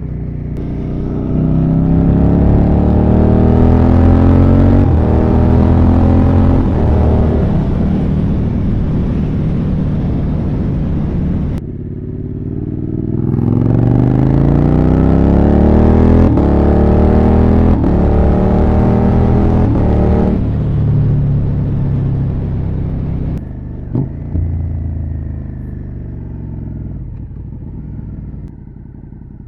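Suzuki SV650's V-twin running through an SC Project titanium exhaust with the dB-killer baffle removed. It accelerates through the gears twice, its pitch climbing in each gear and dropping at each upshift. It then settles to lower, steadier running and fades near the end, with one sharp click about three-quarters of the way through.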